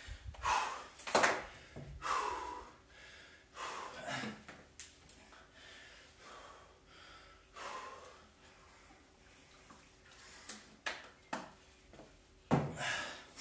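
A man breathing hard, catching his breath after an intense exercise circuit, in repeated rasping breaths, with a few short clicks and knocks in between.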